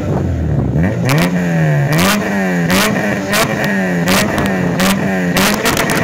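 Supercharged Honda Civic Si engine revved repeatedly at a drag-strip start line before launch, the pitch rising and falling about once a second from about a second in, with a sharp crackle at the top of each rev.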